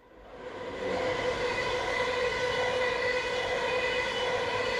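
A passing train's wheels squealing on the rails: a steady, high squeal of several pitched tones over the rolling rumble, fading in over the first second.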